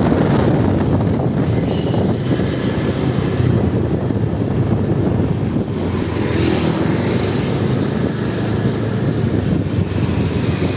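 Steady drone of a motorbike being ridden slowly through town traffic, its engine and road noise mixed with a low rumble on the microphone.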